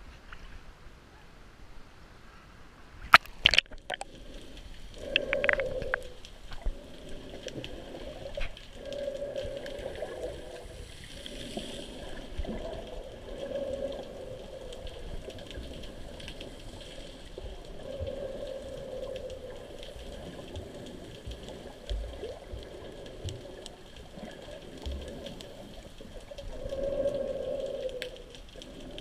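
Sea water heard through a camera going under the surface: a few sharp splashes about three seconds in, then muffled underwater sound with recurring swells of a low hum and faint scattered ticks.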